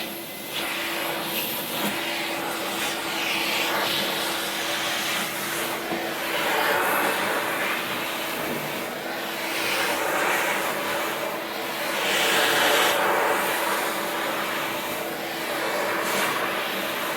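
Household vacuum cleaner running steadily, its rushing sound swelling and easing every few seconds as the nozzle is drawn over a cat's fur.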